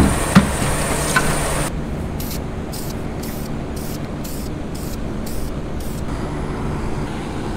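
Aerosol spray-paint can spraying in short, evenly spaced bursts, about two a second, which stop about six seconds in. Before them comes a steady broad hiss with two knocks.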